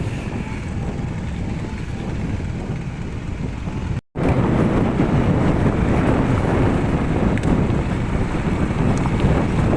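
Wind buffeting the microphone outdoors: a steady low rumble with no tone in it. It cuts out briefly about four seconds in and comes back louder.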